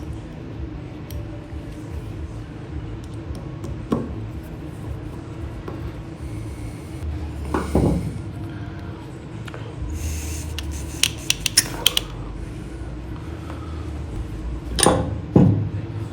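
Small metal carburetor parts clicking and clinking as they are handled and set down on a workbench, with a quick run of clicks past the middle and a louder knock near the end, over a steady low hum.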